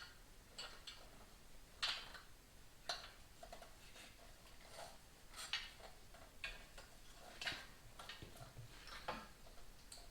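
Light, irregularly spaced clicks and taps of metal parts and hand tools being handled during work on a motorcycle, about a dozen in all, the sharpest about two seconds in.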